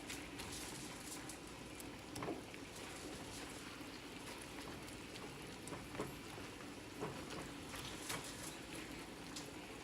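Ground beef and diced onions frying in a pot: a steady sizzle with occasional pops.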